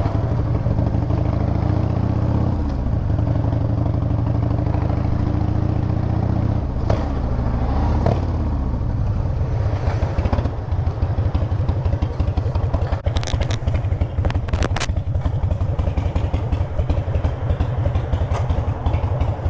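Harley-Davidson V-twin motorcycle engine running at low speed, its pitch shifting as the bike slows, then settling into a steady idle about eight seconds in. A few sharp clicks sound over the idle a little past halfway.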